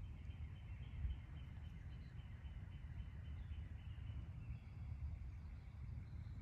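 Faint outdoor ambience: a steady low rumble with a thin, high, evenly pulsing chirp, and a brief thump about a second in.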